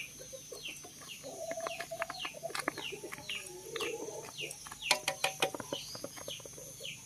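Chickens clucking, with a steady run of short, high, falling chirps about two a second.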